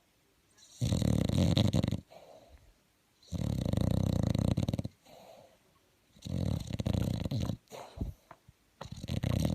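A bulldog snoring loudly: four long rattling snores, one about every two and a half seconds, with soft breaths between them.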